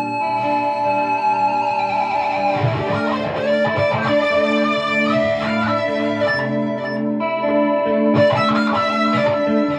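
Distorted electric guitar playing a blues lead over a steady repeating backing accompaniment. It opens on a long held note with vibrato, then breaks into quicker runs from about three seconds in.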